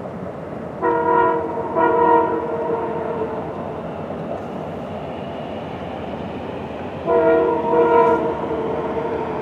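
Diesel locomotive air horn sounding a chord in blasts: a short one about a second in, a longer one right after it, and another long one about seven seconds in. The steady rumble of the passing train runs underneath.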